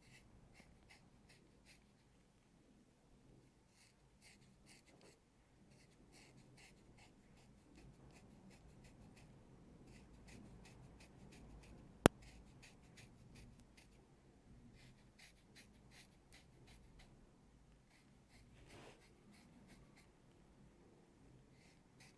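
Dermaplaning razor blade scraping fine hair off facial skin in many short, quick strokes, a faint crisp scratching. A single sharp click about halfway through.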